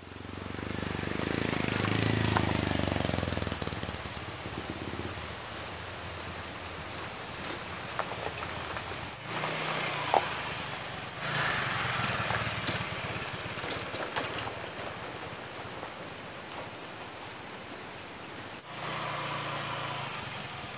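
Small motor scooter engine running as it rides past, its pitch falling as it goes by. The sound breaks off sharply twice and picks up again, with a sharp click about ten seconds in.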